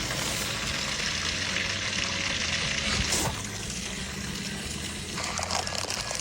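Steady rushing hiss of running or spraying water.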